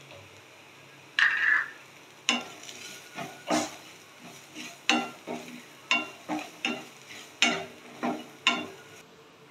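Spatula stirring and scraping in a pan of onion and spices cooking in oil: a run of short scrapes, about two a second, starting about a second in.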